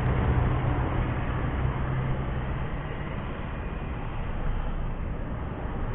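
Road traffic at a sharp bend. A car passes close by with a steady low engine hum that fades after two or three seconds, leaving tyre and road noise. Near the end a large coach and a motorbike approach and the sound grows again.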